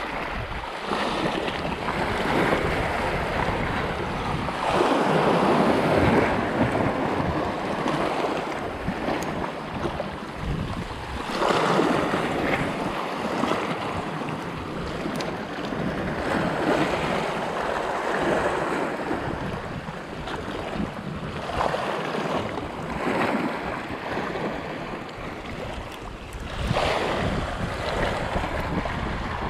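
Small sea waves washing over shoreline rocks, surging louder every five or six seconds, with wind buffeting the microphone.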